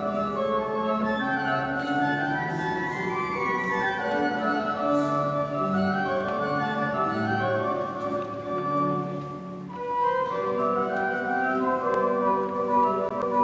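Pipe organ playing a many-voiced piece in sustained, overlapping notes that move in several lines; the sound thins briefly about nine and a half seconds in, then fuller chords resume.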